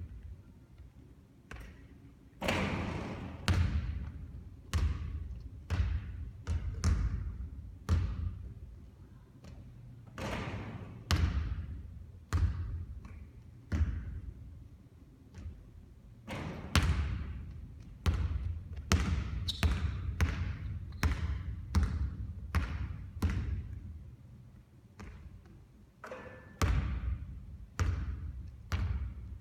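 A basketball bouncing and knocking repeatedly during three-point shooting practice. The sharp impacts come about once or twice a second, several of them trailing off with a ringing tail.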